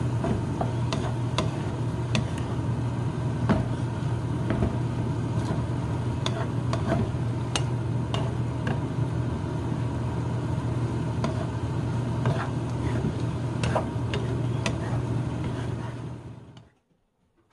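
Stir-frying in a stone-coated pan: a wooden spatula scrapes and taps against the pan in many short clicks over a steady sizzle and low hum. The sound fades out shortly before the end.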